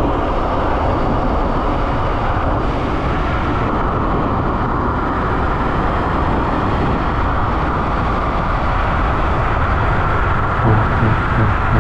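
Steady rush of wind on the microphone with tyre and road noise from a Dualtron X Limited electric scooter riding at speed. It gets louder and rougher near the end.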